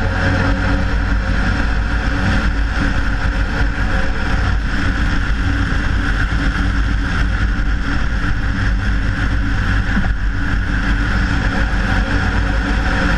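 Steady wind rush and tyre-on-road noise from a Hyundai Veloster Turbo driving at speed, picked up by a camera mounted low beside its front wheel. A heavy low rumble holds even throughout, with no revving.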